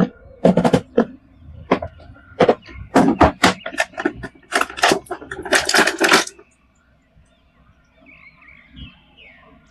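Hard plastic clicking and clattering, a quick irregular run of sharp knocks for about six seconds, typical of toy action figures and their parts being handled and knocked together; then it stops suddenly, leaving only faint chirps.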